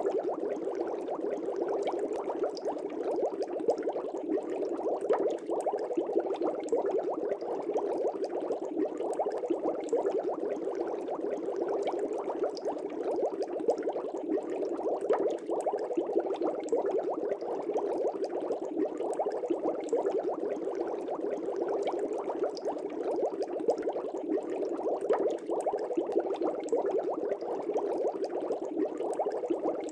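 Aquarium water bubbling: a steady, continuous bubbling with no pauses.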